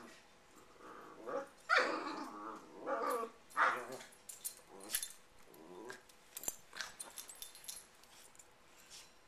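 Two dogs play-growling and yipping at each other in a string of short calls, loudest about two to four seconds in, then softer ones trailing off.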